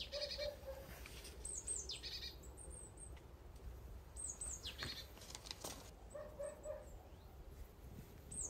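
Small birds calling: a quick high call sweeping downward every two or three seconds, and twice a lower call of three or four short notes in quick succession.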